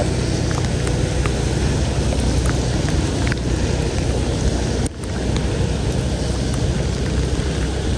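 Steady traffic and road noise on a wet street in the rain, with a low hum underneath and wind rushing over the microphone. It dips briefly about five seconds in.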